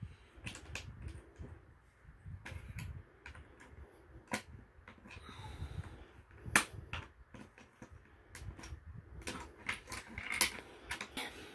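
Banbao plastic building bricks clicking as they are pressed onto a baseplate and handled: an irregular scatter of small sharp clicks, with two louder snaps, one about halfway through and one near the end.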